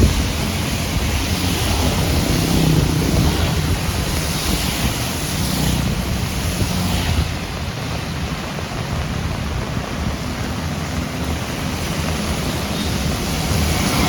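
Heavy rain falling steadily, with vehicles passing on a wet, flooded road: engine rumble and tyre swish that swell and fade several times, easing somewhat around the middle.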